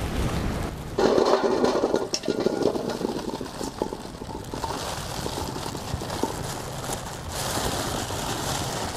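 Water sloshing and splashing in a basin as jaboticaba fruit are soaked and washed. It starts abruptly about a second in.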